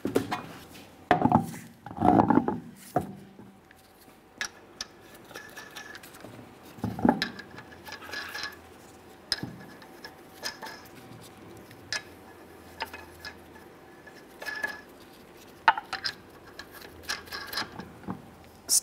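Scattered metal clinks, taps and knocks of an alloy wheel and its lug nuts being handled as the wheel goes back onto the hub, with a few heavier clunks in the first three seconds and again about seven seconds in.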